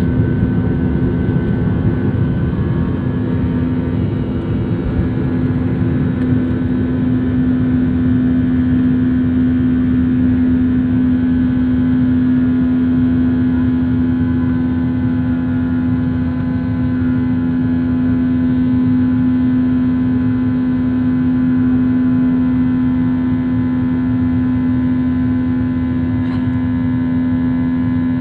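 Airplane engines running, a steady drone with a constant pitched tone that holds throughout.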